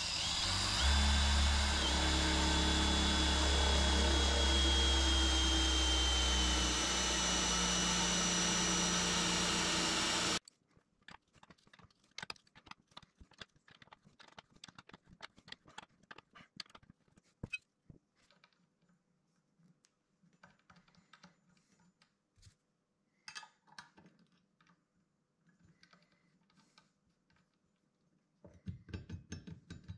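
Cordless drill running steadily as its bit bores into an ash board, with a high whine that falls slightly in pitch; it cuts off suddenly about ten seconds in. Then faint scattered clicks and taps of small tools and a metal bracket being handled on the wood, with a brief louder patch of handling noise near the end.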